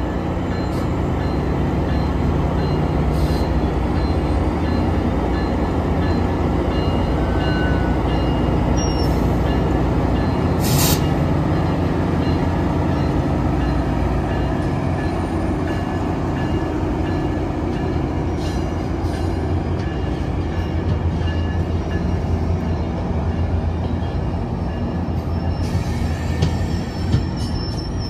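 GO Transit MP40PH-3C diesel locomotive rumbling steadily as it hauls bilevel coaches slowly through a level crossing, with wheels rolling and squealing faintly on the rails. A crossing warning bell rings evenly behind it.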